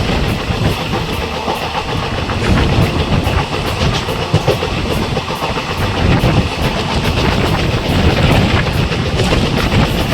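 Passenger train with ICF coaches running along the track, its wheels rumbling and clattering over the rails with a steady, loud running noise.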